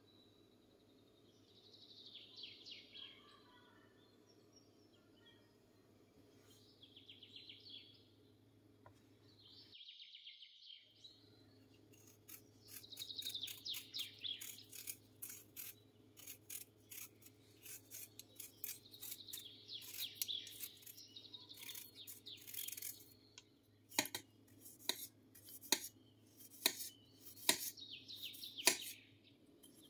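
A blade peeling a raw potato in quick, repeated rasping strokes. From about two-thirds of the way in, a knife slices the peeled potato on a marble board, each cut ending in a sharp click. A few faint scrapes come earlier, under a steady low hum.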